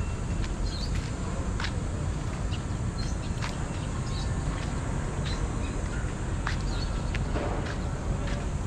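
Outdoor street-park ambience: a steady low rumble with birds chirping and scattered sharp clicks.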